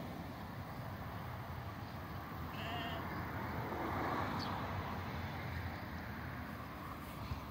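A sheep bleats once, briefly, about two and a half seconds in, over a steady low background rumble. A broader rushing noise swells and fades around the middle.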